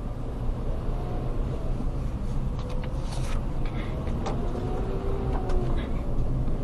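Steady low road and engine rumble inside a moving car's cabin, with a few short squeaks and clicks in the middle: a newly appeared squeak in the car that still needs diagnosing.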